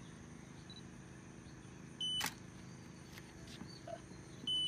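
A camera taking two pictures about two and a half seconds apart, each a short high beep with a shutter click, over faint steady background hum.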